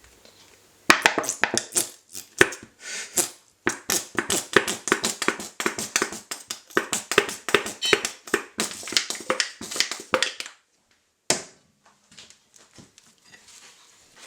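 Rapid clicking and tapping of a kitchen utensil against a dish, about five knocks a second for some nine seconds, then one last knock.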